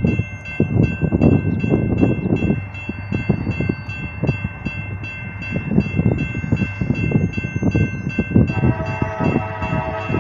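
Railroad crossing warning bell ringing in rapid, even strikes as the crossing gates lower, over a low, uneven rumble. About eight and a half seconds in, a locomotive horn starts sounding and holds.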